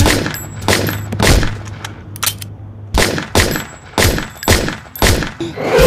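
A rapid, uneven series of about a dozen sharp bangs or impacts, with a brief high ring after the first few.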